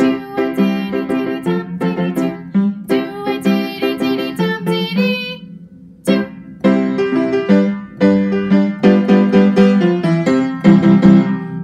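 Keyboard music: a bouncy piano-style tune with many quick notes, which breaks off briefly about halfway through and then resumes.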